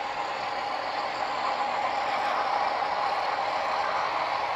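HO scale model of a Southern Pacific cab-forward steam locomotive and its train running past: a steady whirring rattle of the motor and wheels on the track, growing a little louder about two seconds in as it nears.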